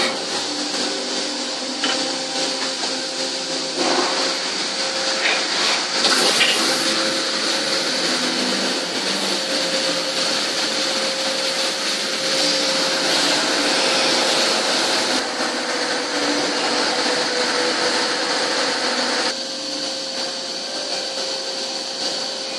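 CNC lathe running a cycle with coolant spraying: a steady rushing hiss of coolant over machine noise, with a steady mid whine and a higher whine. A few sharp knocks come in the first six seconds, and the level drops a little about nineteen seconds in.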